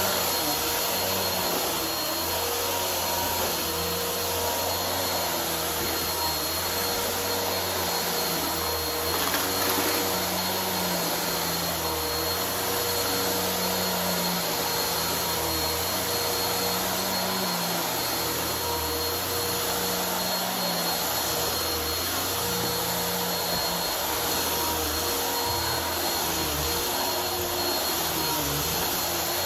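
Brush-roll vacuum cleaner running steadily with a constant motor whine, sucking up a pile of dry debris.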